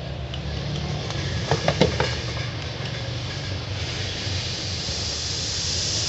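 Small plastic rocker switches handled in the hands, with three or four sharp clicks about a second and a half in, over a steady low hum; a hiss swells near the end.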